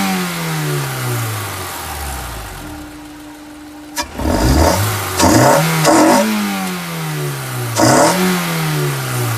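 Honda S2000's inline-four engine revved in quick blips, the revs sliding back down slowly toward idle after each. There is a sharp click about four seconds in.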